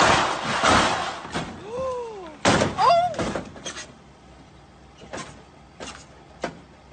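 A sports convertible comes off a car hauler's steel ramps with a loud scraping, rushing noise, then hits a pickup truck with one heavy crash about two and a half seconds in. A person cries out around the crash, and a few light knocks follow.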